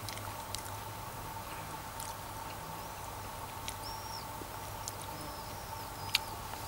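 Quiet open-air ambience: a steady insect drone with a few short bird chirps, and now and then a light click of a spoon against a bowl as sour cream is stirred.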